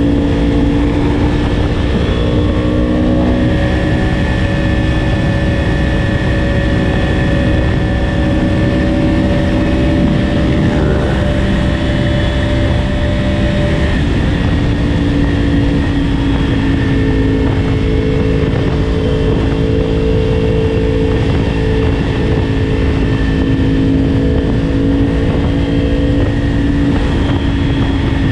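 Yamaha R1 motorcycle engine heard from on board while riding, holding a steady note under a constant rush of wind and road noise. About halfway through the engine note drops and then settles into a steady note again.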